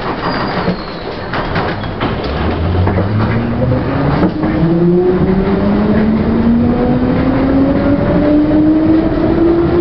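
London Underground C Stock train pulling away from a station and accelerating, heard from inside the carriage: the traction motors' whine rises steadily in pitch over the rumble of the wheels, with a few clicks and knocks in the first seconds.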